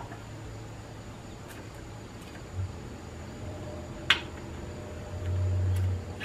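Small clicks and handling sounds as the rear servo piston of a 47RE automatic transmission is pressed into its bore, its lip seal being worked in. A sharp click comes about four seconds in and a louder one at the very end, over a low steady hum that swells for about a second near the end.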